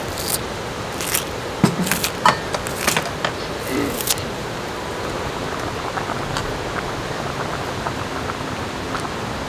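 Scissors snipping green onion stalks, a quick run of sharp snips in the first four seconds, over the steady rush of a creek.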